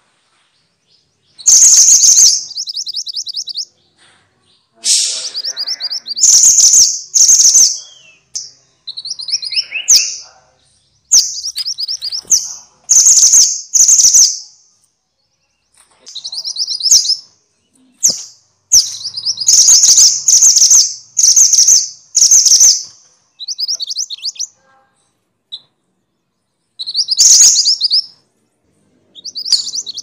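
Minivet calls: loud, high-pitched bursts of quick trilled notes. They come in phrases of a second or two, repeated again and again with short silent gaps.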